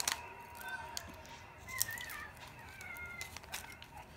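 Faint clicks and taps of hands handling small loose pearls and a ceramic bowl of water, the sharpest click right at the start, with a few faint wavering high squeaks in the middle.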